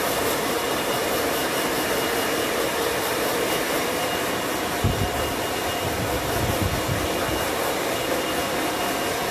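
Steady whirring of an electric motor-driven fan, like a vacuum cleaner or hair dryer, running at an even level, with low rumbling thumps joining from about halfway.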